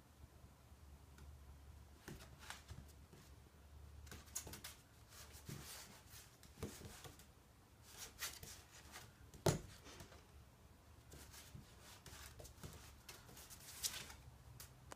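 Kerry Blue Terrier puppy's claws clicking and scuffling on a slate tile floor as it plays, in scattered short bursts, with one sharper knock about halfway through.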